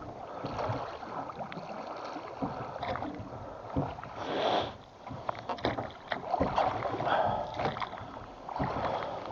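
Oars being pulled through the water as a small boat is rowed: uneven splashing strokes with short knocks, likely from the oars in their oarlocks.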